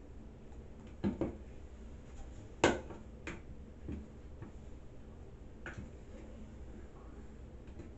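A scattering of sharp clicks and taps from handling and fitting the plastic parts of a baby toilet seat lock, the loudest about two and a half seconds in.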